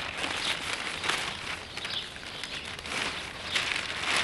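Newspaper pages rustling and crackling as they are shaken and folded by hand, in irregular bursts.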